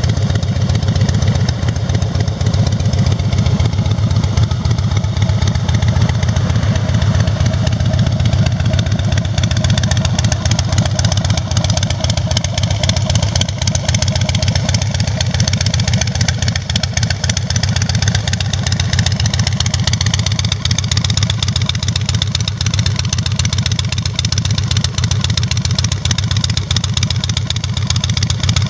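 Harley-Davidson FXSB Breakout's air-cooled Twin Cam 103B V-twin idling steadily through black slash-cut dual exhaust pipes, a deep, even run of pulses with no revving.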